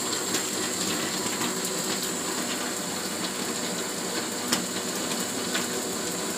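Electric countertop blender running steadily at one speed, blending strawberries and milk into a milkshake.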